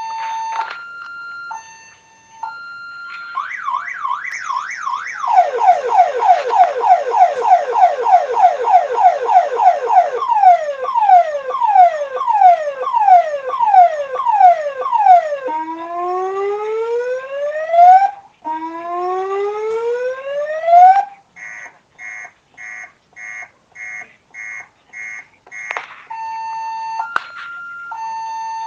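Ambulance siren stepping through its tones: it starts and ends on a two-note hi-lo. In between come a fast warble, a long run of quick falling sweeps that gradually slow, two long rising wails, and a run of short beeping pulses.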